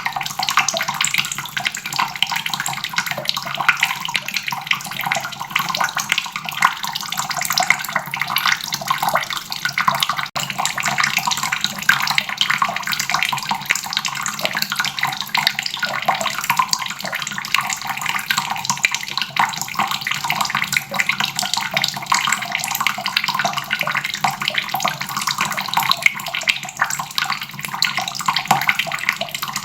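Water faucet running steadily, its stream splashing continuously into the basin below.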